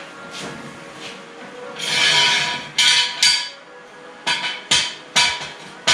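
A short scraping rush about two seconds in, then a string of about six sharp knocks and clacks, from a car seat on a wheeled dolly being shuffled and rocked on a concrete floor.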